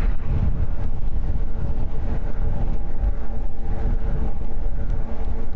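Eahora Juliet e-bike riding along at steady speed: wind rumble on the microphone and tyre noise, with a steady whine from the electric hub motor.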